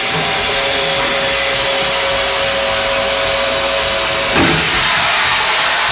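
Snowboard base-grinding machine running steadily with water spraying, grinding the scratches out of a snowboard's base. A steady hum in it stops with a short knock about four and a half seconds in.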